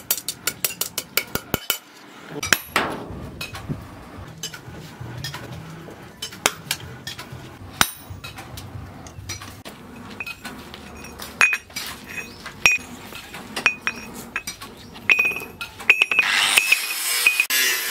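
Hand-hammer blows clinking on steel over a stake anvil made from a rusty steel post: a fast run of about four strikes a second at first, then slower, scattered taps with a high ring. Near the end a steady hiss comes in.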